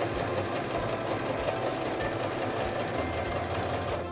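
Domestic electric sewing machine running a straight stitch, the needle going up and down in a fast, steady run of strokes; it stops right at the end.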